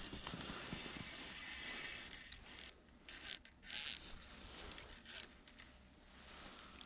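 Faint steady hiss, then a few short rustles and scrapes about three to five seconds in as the ice angler leans over the hole, his jacket and gear brushing close to the chest-mounted camera.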